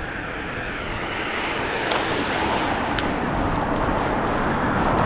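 A car on the road approaching and passing, its engine and tyre noise a steady rush that grows gradually louder.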